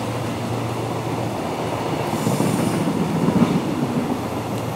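Container wagons of a freight train rolling past on the rails: a steady rumble of wheels on track that grows louder about two seconds in and then eases off.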